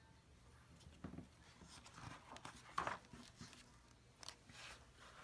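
Pages of a picture book being turned and handled: faint paper rustles and a few light taps, loudest a little before three seconds in.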